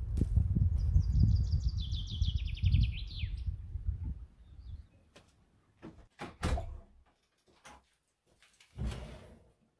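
A songbird singing a fast run of notes that steps down in pitch and ends in a flourish, over wind rumbling on the microphone. After that it goes nearly quiet, broken by a few sharp clicks and knocks and a short louder clatter near the end.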